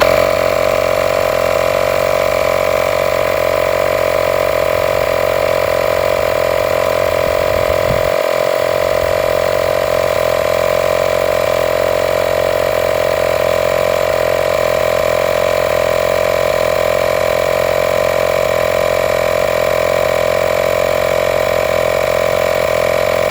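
Makita DMP180 18 V cordless inflator compressor starts abruptly and runs with a steady, even hum, pumping an air tank up from about 90 psi toward its 100 psi shut-off. The owner puts the long run down to a loose connection leaking air.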